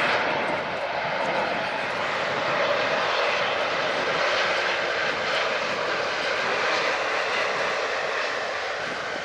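Airliner's engines, a loud steady rush, easing off slightly near the end.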